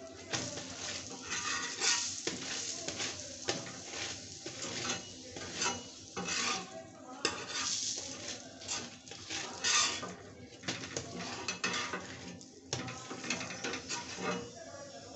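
A paratha sizzling in oil on a flat tawa, with a steel spatula repeatedly pressing and scraping it around the pan in quick, irregular strokes; it is flipped right at the start.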